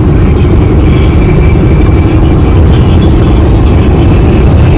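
Loud, steady rumble of road and wind noise from a car driving along.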